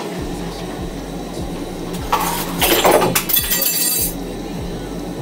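Metal spoon clinking and rattling against other cutlery or dishes for about a second and a half, midway through.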